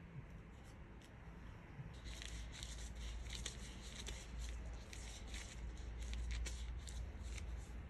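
Disposable plastic gloves crinkling and rustling as hands roll a ball of dough between the palms, a run of soft crackles from about two seconds in.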